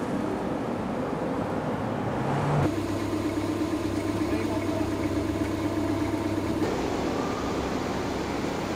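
Street traffic noise with a vehicle engine idling steadily; the sound changes abruptly about a third of the way in and again near the end.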